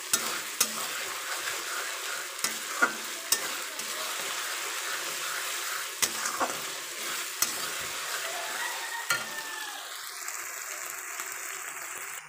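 Onions, tomatoes and ginger-garlic paste sizzling steadily in hot oil in a kadai while being stirred, with a metal spatula scraping and clicking against the pan now and then. It is the masala being fried down (kashano) before the spices go in.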